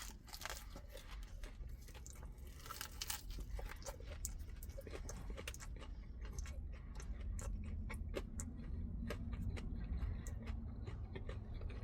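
A person chewing crispy fried chicken, with many small crunches and mouth clicks scattered through it.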